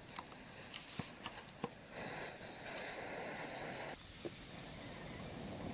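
Campfire crackling with a few sharp pops, then a rush of air for about two seconds, cut off abruptly, as air is blown into the fire through a fire straw. A soft hiss of the fire and the butter warming in the skillet continues afterwards.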